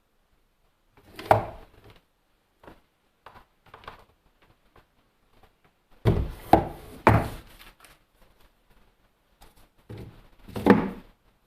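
Parts being handled and set down: a thunk about a second in, a quick run of knocks around six to seven seconds, and another thunk near the end, with light rubbing and handling noise between.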